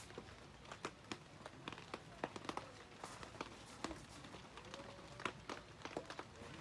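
Rain falling: many separate drops tapping sharply and irregularly, several a second, over a faint steady hiss. The individual strikes stand out, which makes the rain sound unusually loud.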